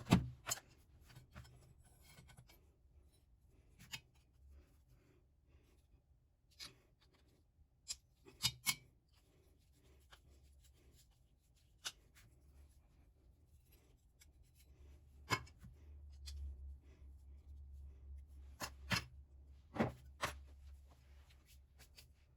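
Scattered sharp clicks and taps of small objects being handled, about a dozen, the loudest near the start and in a cluster near the end, over a faint low hum that grows louder in the second half.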